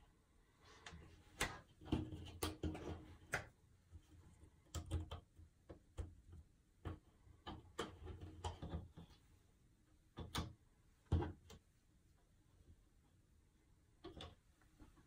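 Paperboard jigsaw puzzle pieces being picked up, slid and set down on a tabletop: irregular soft clicks, taps and rustles, thick through most of the stretch, then a quiet spell before a few more taps near the end.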